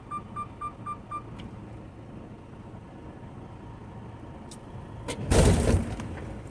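Semi-truck backing under a trailer: its reverse warning beeper beeps about four times a second and stops just after a second in, over the diesel engine's low idle. About five seconds in, the fifth wheel slams into the trailer's kingpin with a loud bang as it couples, a hard coupling that is really a slam.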